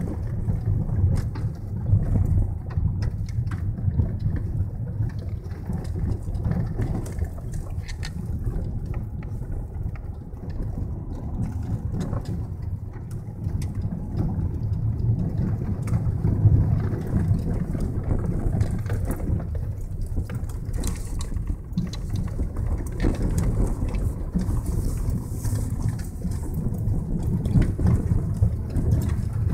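Car driving along a gravel track, heard from inside the cabin: a steady low rumble of engine and tyres, with frequent small clicks and ticks of gravel under the wheels.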